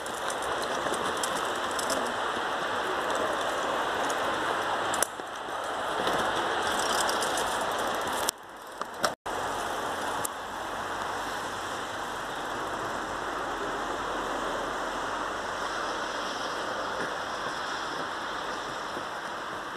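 A steady hiss with scattered faint clicks, dropping out briefly about eight to nine seconds in.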